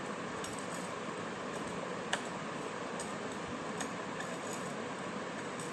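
A drinking glass pressed rim-down and twisted in crushed sugar and chilli powder on a glass plate: faint gritty scraping and small glass-on-glass clicks, with one sharper click about two seconds in, over a steady fan-like hiss.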